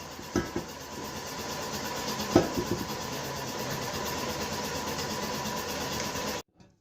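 A workshop machine running steadily with a faint whine and a couple of sharp metallic knocks, cut off suddenly near the end.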